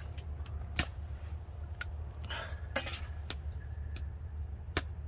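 Several sharp, separate clicks and light clinks from a plastic flip-top bottle cap and small steel dishes being handled while oil is poured, over a steady low hum.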